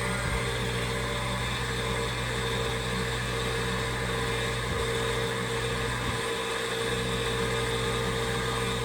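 Gas furnace running in its preheat stage: the inducer (draft) motor hums steadily with the burners lit. The new pressure switch has closed and the ignition sequence has completed, and the main blower has not yet started.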